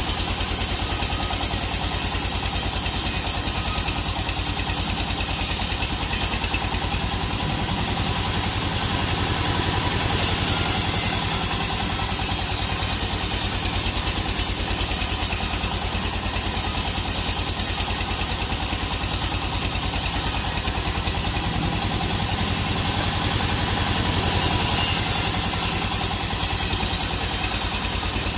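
Sawmill machinery running steadily: an engine drone with a fast even pulse and a high hiss that drops away twice for a few seconds.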